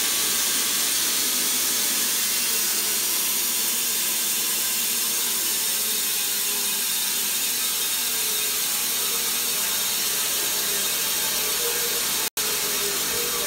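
Wood-Mizer LT15 band sawmill running, its blade sawing through an oak log: a steady, loud mechanical noise that cuts out for an instant near the end.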